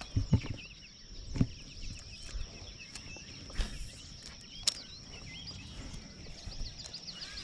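Outdoor pond ambience: many small birds chirping and a steady high insect buzz, with a few sharp knocks.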